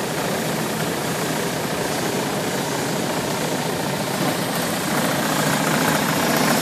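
CEI ECL slitter rewinder running at speed through a roll of booklet labels: a steady mechanical whir of rollers and web. It grows a little louder about five seconds in.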